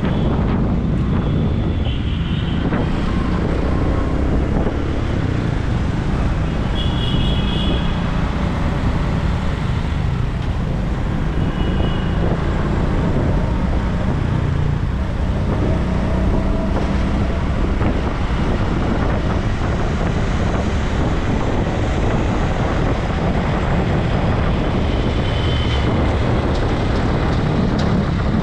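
Wind buffeting on the microphone over steady road-traffic noise, heard from a moving vehicle in city traffic. A few brief high-pitched beeps sound now and then.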